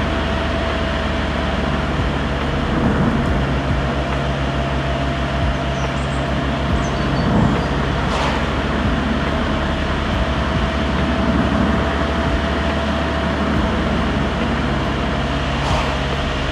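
Audi A4 B9 2.0 TFSI turbocharged four-cylinder car driving along: steady engine and tyre-on-road noise, with a faint steady tone and a couple of brief bumps.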